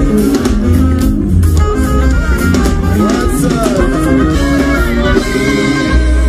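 Music with guitar and drums over a heavy bass line.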